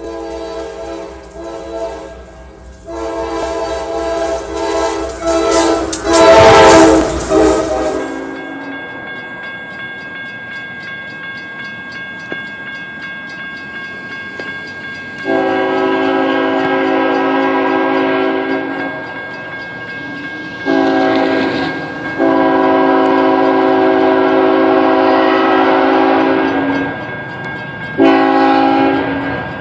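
Diesel freight locomotive's air horn sounding a chord of several notes. In the second half it blows the grade-crossing sequence: a long blast, a second long one with a brief dip, a short one, and the start of another long one as the train approaches. Earlier comes a horn chord with a loud rushing burst about six seconds in, and a faint steady high tone sits under the horn blasts.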